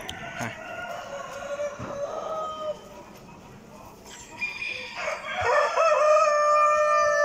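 Roosters crowing: a fainter crow at the start, then a louder, long crow beginning about four and a half seconds in, held at a steady pitch.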